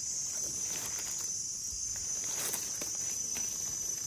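Steady high-pitched insect chorus, with faint rustling and crackling of dry leaf litter as a hand works through it.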